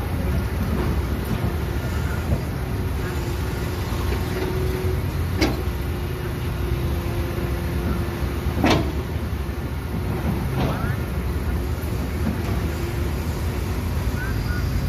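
Diesel engines of a long-reach excavator and waiting dump trucks running steadily with a low hum. Two sharp metallic knocks come about five and nine seconds in, the second the louder.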